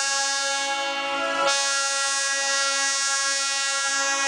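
Train horn sounding one long, steady blast rich in overtones, wavering briefly about a second in, heard from a window of the moving train.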